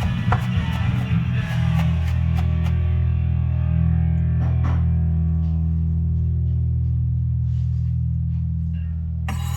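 Rock music with electric guitar and drums: the drum hits stop after about a second and a half, and a last held guitar chord rings on. A short scraping noise comes near the end.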